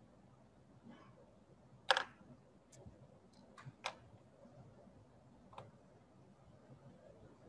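Computer mouse being clicked: about six short sharp clicks spread over a few seconds, the loudest about two seconds in and another just before four seconds.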